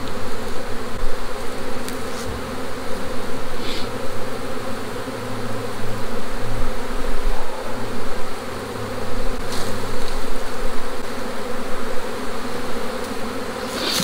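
Steady, dense buzzing of a large number of honeybees in the air around a hive that a bear has torn open and that is being worked.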